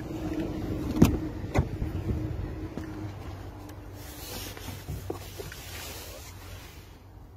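2023 Range Rover Sport's driver's door unlatched and opened: two sharp clicks about a second in, over a low steady hum, followed by a soft rustling hiss.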